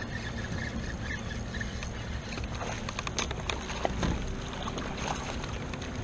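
Water lapping around a fishing kayak with a steady low rumble of wind on the microphone. A cluster of short clicks and splashes comes from about halfway through as a hooked fish is brought up to the boat.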